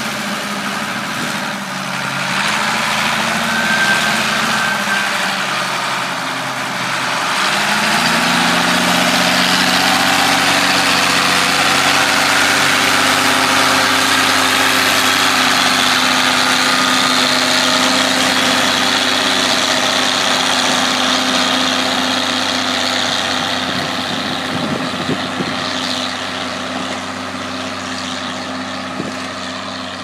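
Ford 8210 tractor's six-cylinder diesel engine pulling a reversible plough. The engine note wavers and dips at first, picks up about eight seconds in and then holds steady under load. It grows quieter over the last several seconds.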